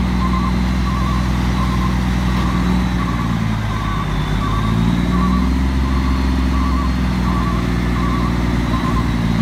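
Diesel engine of a roll-off garbage truck running while its hydraulic hoist lowers a roll-off container onto the bed. The engine note shifts up and down through the middle. A backup alarm beeps steadily, about once every 0.7 seconds.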